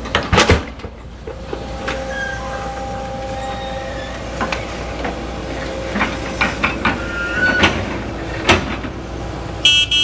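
Diesel hydraulic excavator loading soil into a dump truck: the engine runs steadily under a hydraulic whine, with several sharp clanks and thuds as the bucket works and dumps into the steel truck body. A brief high-pitched beep near the end.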